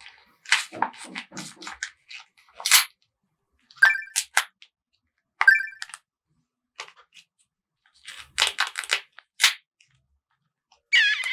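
Paper-craft ASMR handling sounds: short separate bursts of clicks and crinkles, with two brief squeaky chirps about four and five and a half seconds in.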